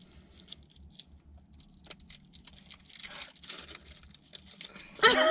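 Plastic candy cane wrapper being torn open and crinkled, a run of small crackles with a louder tearing rustle about three seconds in.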